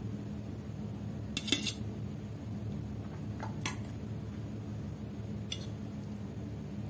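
Three light clinks of stainless-steel dishes, the loudest about a second and a half in, with weaker ones near the middle and toward the end, over a steady low hum.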